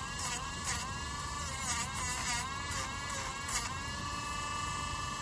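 A Dremel rotary tool grinds a dog's toenails, its small motor whining steadily. The pitch dips briefly about six times as the drum bears on the nail, then holds steady from about three and a half seconds in.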